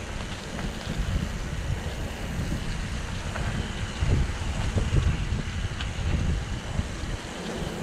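Wind buffeting the microphone during a mountain bike ride, with an uneven low rumble and a few small knocks from the bike running over rough trail.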